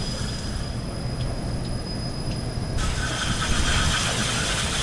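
Pressurised water spraying onto the dirty cross-flow blower wheel of a Mitsubishi ductless mini split, washing the built-up dirt out of it. It is a steady rushing spray that turns brighter and hissier about three seconds in, as the jet moves to another part of the wheel.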